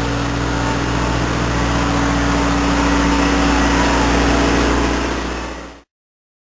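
Passenger railcars rolling slowly past close by, a steady low hum and rumble. The sound cuts off abruptly near the end.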